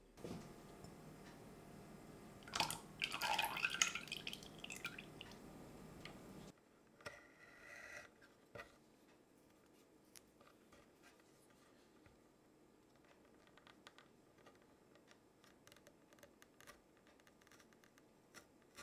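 A steady low hum, with a louder rushing sound about three seconds in whose pitch dips and rises again; the hum cuts off after about six seconds. Then quiet, scattered light taps and clicks of a chef's knife on a bamboo cutting board as a vanilla pod is sliced.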